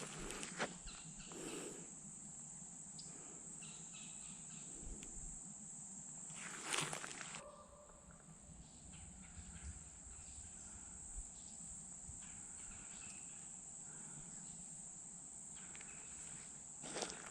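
Steady high-pitched insect chorus. A few footsteps or rustles sound in the first two seconds, and a louder one about seven seconds in.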